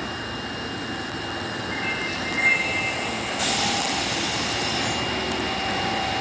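Osaka Metro 22 series subway car giving off a steady high electrical whine over a broad hum, with a short hiss about three and a half seconds in.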